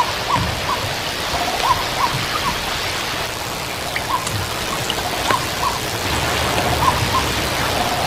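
White-breasted waterhen calling: short hooting notes repeated in twos and threes, over a steady rushing hiss.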